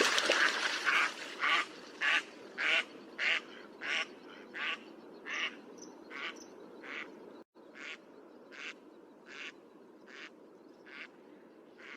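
A duck quacking repeatedly in a steady series, with a quack about every half second or so, the calls growing fainter. There is a short break about seven and a half seconds in.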